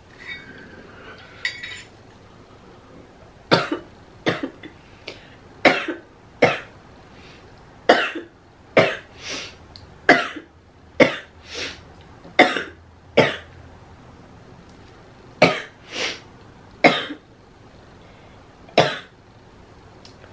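A woman coughing in repeated fits after inhaling cannabis smoke from a bong. After a faint sound at the start, the coughs begin a few seconds in, well over a dozen sharp coughs, often in quick pairs, until just before the end.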